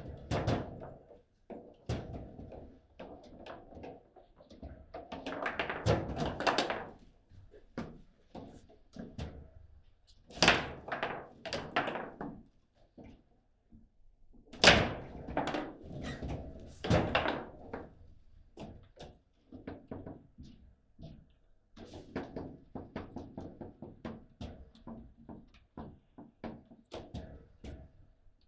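Table football game in play: a quick irregular run of knocks and thuds as the ball is struck by the rod figures and bangs off the table walls, with several louder flurries of rapid rattling hits.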